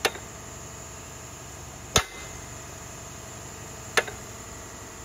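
Hammer blows on metal, three strikes about two seconds apart, each sharp with a brief ring, over a steady background noise.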